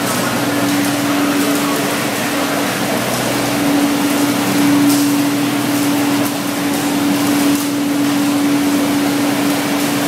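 Olive mill machinery at the receiving hopper and conveyor running continuously, a loud mechanical noise with a steady hum that grows stronger about three seconds in.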